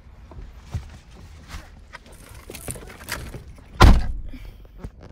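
Knocks and rustling of someone shifting about in a car seat with a handheld phone, then one heavy thump about four seconds in.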